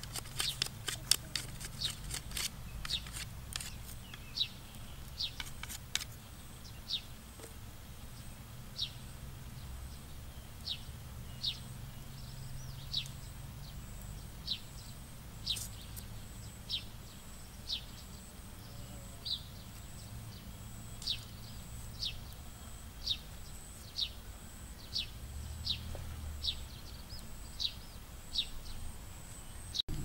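A knife cutting and shaving a bamboo stick into a skewer, making quick sharp clicks over the first few seconds. A bird calls throughout in short, falling chirps, about one a second.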